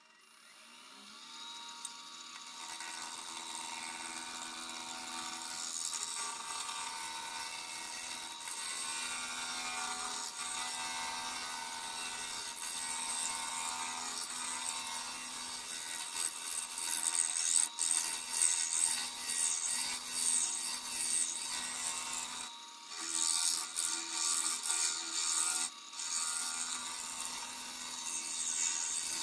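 Wood lathe motor spinning up about a second in, then a steady rough scraping as a tool rubs against the spinning black walnut sphere. The scraping drops away briefly twice near the end.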